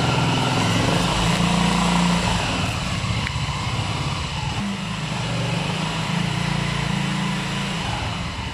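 The 200 cc four-stroke, air-cooled engine of a Dinamo Molotov buggy idling with a steady drone. Its pitch shifts slightly a little before halfway through.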